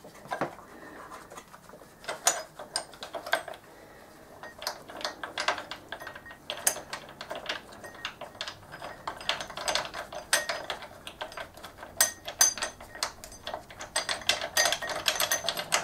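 Irregular light metallic clicks and clinks of steel engine-mount bolts, nuts and a bracket being handled and fitted into a motorcycle frame, getting busier toward the end.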